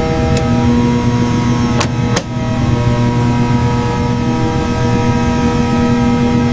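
Steady mechanical hum of factory machinery, several held tones at once, with two sharp clicks about two seconds in.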